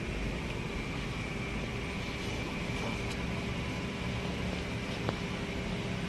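Steady factory machinery noise: a continuous hiss and low hum, with a faint click about five seconds in.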